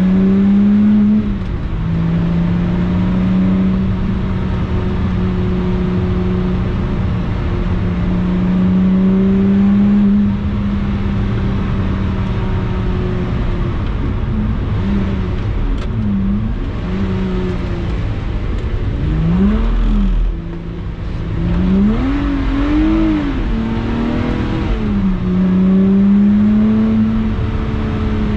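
Lotus Exige 350 Sport's supercharged 3.5-litre V6 pulling hard at fairly steady revs. About halfway through, the revs rise and fall quickly several times, with a brief lift about two-thirds of the way in.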